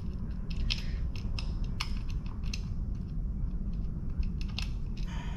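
Light metallic clicks and clinks of screws and wheel hardware being handled, quick and irregular in the first half and sparser later, over a steady low hum.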